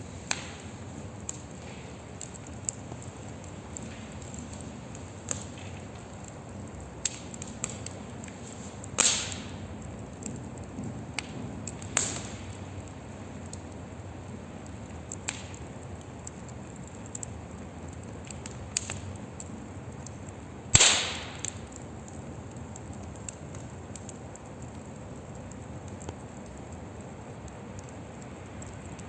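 Wood fire burning in a fire pit: a steady low hiss of flames with irregular crackles and snaps of burning wood, the sharpest loud pops about 9, 12 and 21 seconds in.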